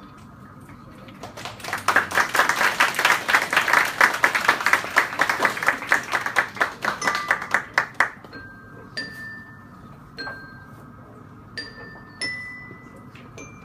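Small tabletop glockenspiel played with mallets: a fast, rattling run of many quick strokes for about six seconds, then about six single ringing notes struck slowly, one at a time.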